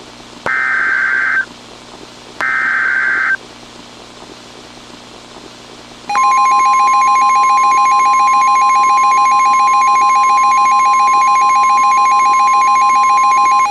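Emergency Alert System SAME header data bursts, a harsh buzzing screech sounded twice for about a second each. After a pause of a few seconds comes a loud, steady EAS alert tone that lasts about seven and a half seconds and signals the start of a new warning.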